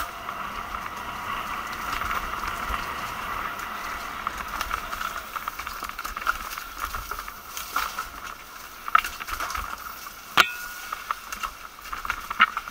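Mountain bike riding over a dirt forest trail: chain and frame rattle with scattered sharp knocks over bumps, the loudest about ten seconds in with a brief ring after it. A steady high hum is strong for the first few seconds, then fades.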